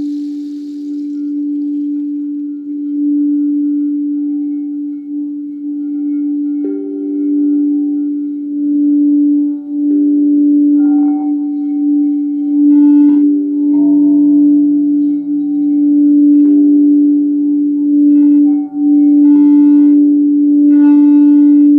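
Several singing bowls ringing together. One steady low tone is held throughout, and other bowls join at higher pitches every few seconds, with several struck in the second half.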